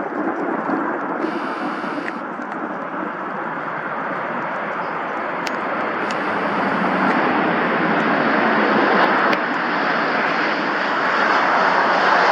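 Jet engine roar of an Airbus A350-900 with Rolls-Royce Trent XWB engines on landing, a steady rushing noise that builds gradually louder.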